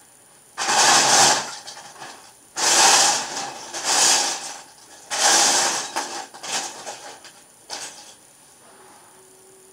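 Loose plastic Lego bricks clattering as a hand rummages through a pile of them, in four loud bursts of about a second each, followed by a few fainter clicks.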